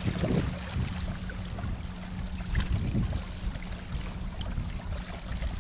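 Water splashing and gurgling along the hull of a Hobie Tandem Island sailing kayak under sail, with a low rumble of wind on the microphone and scattered small splashes.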